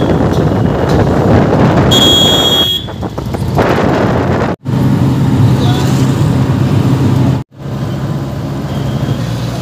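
Auto-rickshaw ride heard from inside the open cabin: the engine's steady drone with wind and road noise. A horn beeps briefly about two seconds in, and the sound drops out for a moment twice.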